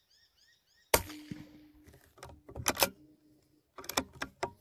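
A single shot from a CZ 452 bolt-action .22LR rifle about a second in, followed by two clusters of short metallic clicks as the bolt is worked to eject the spent case and chamber the next round.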